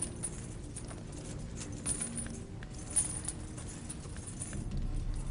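Light metallic jingling and clinking, scattered short clinks with a few sharper ones, over a faint low background.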